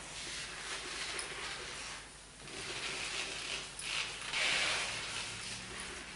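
Marker pen rubbing across a whiteboard in several writing strokes, the longest and loudest about two-thirds of the way through.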